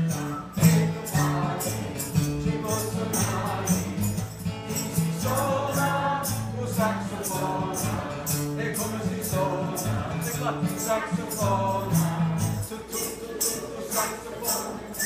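Group of children singing an Italian cumulative song to acoustic guitar, with a steady beat of hand percussion at about three strokes a second. The guitar's low notes drop out near the end while the percussion keeps going.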